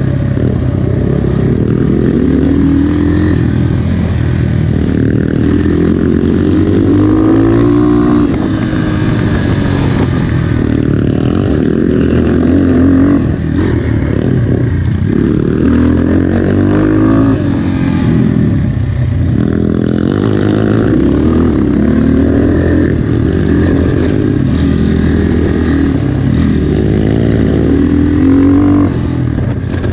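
GPX FSE 250E dirt bike engine running under load on a trail ride, its pitch rising and falling again and again as the throttle is opened and closed.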